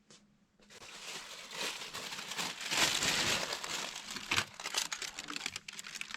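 Packing material, tissue paper or plastic wrap, crinkling and crumpling as it is handled. It starts about a second in and grows louder, with sharp crackles.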